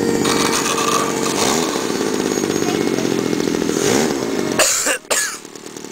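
A radio-controlled model airplane's engine buzzes steadily as the plane rolls down the runway and lifts off. About five seconds in there is a short, loud rush of noise, and the engine sound is fainter after it.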